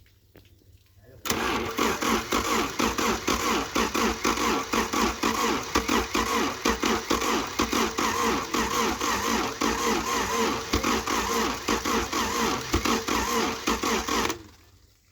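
Overhauled Toyota 4Y four-cylinder petrol engine running, with a fast, even firing rhythm. It catches abruptly about a second in and dies away near the end, as if shut off.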